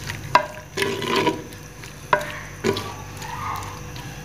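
Chopped onions frying in hot oil in a clay handi, stirred with a spatula: a faint sizzle with about four sharp knocks of the spatula against the clay pot.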